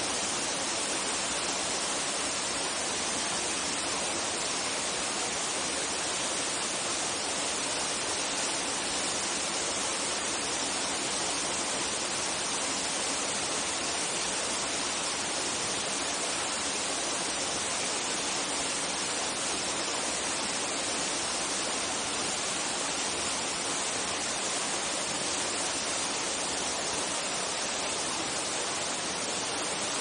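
Steady rush of a mountain waterfall cascading down a rock face, an even hiss that does not change.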